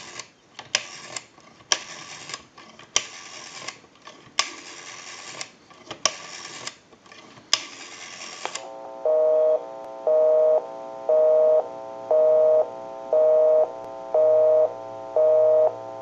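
Rotary dial of an Automatic Electric AE40 telephone being dialled, each digit heard as a short burst of dial-pulse clicking with pauses between digits. About nine seconds in, a busy signal starts: a steady two-note tone going on and off about once a second.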